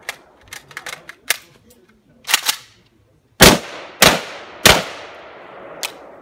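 Three pistol shots about a second and a half apart in total, each trailing off in echo, the first coming about three and a half seconds in. Before them come light clicks and knocks of gun handling.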